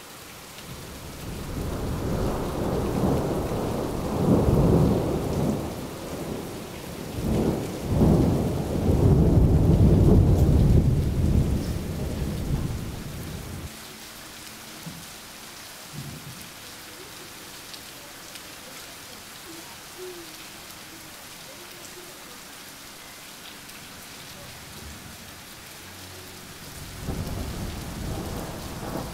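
Thunder rumbling long and low over steady rain, swelling twice to its loudest before fading about halfway through to the hiss of rain alone. A fresh rumble of thunder starts near the end.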